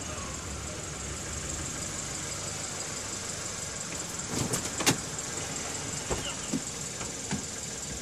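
Kia K7 (Cadenza) sedan idling with a steady hum, heard from inside the cabin. A few sharp clicks and knocks about halfway through, the loudest near five seconds, and lighter ones after, as the driver's door is unlatched and opened.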